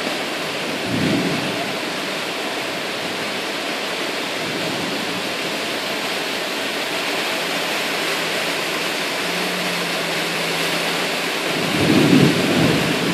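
Heavy rain and rushing floodwater filling the street make a steady, loud hiss. Low rumbles come through about a second in and again near the end.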